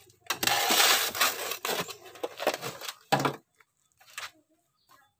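Steel shovel scraping along the bottom of a metal wheelbarrow as it scoops a soil and river-sand planting mix: one long gritty scrape, then a few shorter scrapes, with only faint scuffs near the end.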